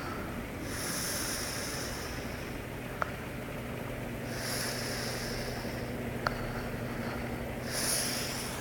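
Snoring: three long, noisy breaths a few seconds apart, over a steady low hum.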